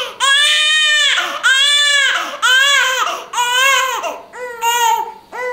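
Infant crying: a run of high-pitched wails, each about a second long and growing shorter toward the end.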